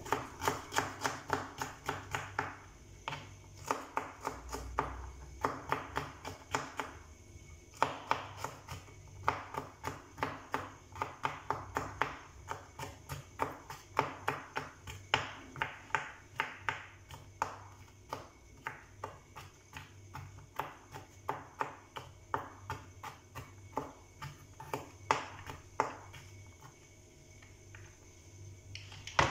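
Kitchen knife chopping garlic cloves on a wooden cutting board: quick runs of knocks, about four a second, with short pauses between runs that grow fewer near the end.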